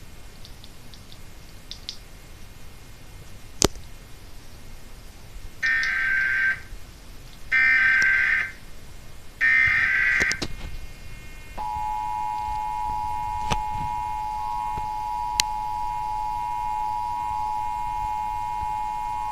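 Emergency Alert System SAME header: three one-second squawks of digital data tone about two seconds apart, then the EAS two-tone attention signal, a steady dual tone held for about eight seconds, here marking a Required Monthly Test. A sharp click comes a few seconds before the data tones.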